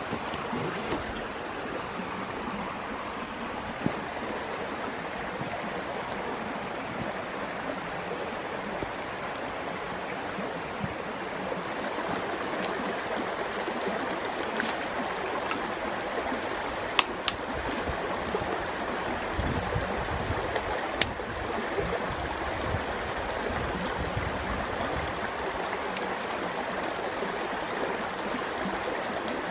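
Creek water flowing steadily, with a few sharp knocks over it: two close together a little past halfway, and one more a few seconds later.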